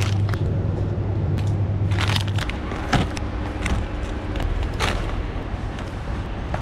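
Groceries being set into a shopping basket right next to the microphone: a series of knocks and crinkles as the bottles and packages go in, the sharpest about three seconds in. Under them a steady low hum stops about two and a half seconds in.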